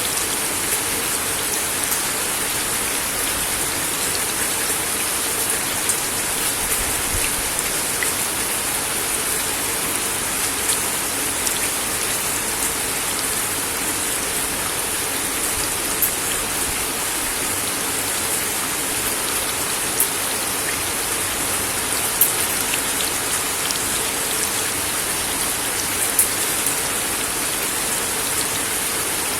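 Steady rain falling on a wooden deck, an even hiss with scattered louder drops ticking on the boards.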